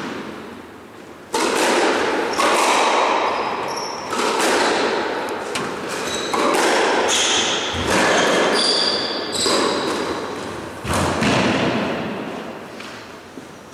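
Squash rally: hard strikes of racquet on ball and ball on wall, one every one to two seconds, each ringing in the enclosed court. Short high squeaks, from court shoes on the wooden floor, fall between the hits. The hits stop a couple of seconds before the end as the rally finishes.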